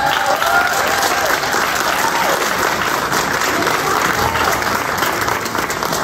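A crowd applauding steadily, with a few shouted cheers heard over the clapping.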